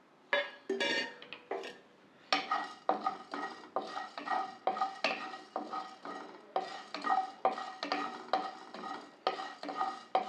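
A wooden spatula stirring whole black peppercorns in a dry nonstick kadai, the peppercorns rolling and rattling against the pan as they are dry-roasted on a low flame. A few uneven scrapes come first, then from about two seconds in a steady rhythm of about two to three strokes a second.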